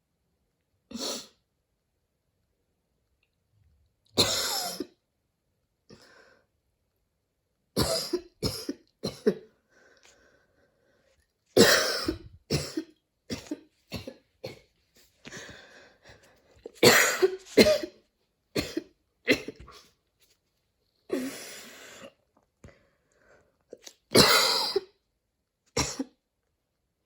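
A woman coughing in repeated fits: about twenty hard, wheezy coughs come in irregular clusters with short pauses between. Her airways are irritated by allergies after a run.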